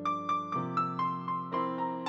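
Dynatone digital piano being played: a melody of quick single notes, about four a second and stepping mostly downward, over held low chords that change about halfway through.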